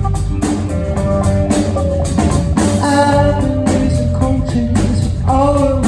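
Live rock band playing: guitar lines with held, bending notes over a drum kit keeping a steady beat.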